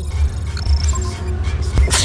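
Background music with a steady deep bass beat, and a short sharp click near the end.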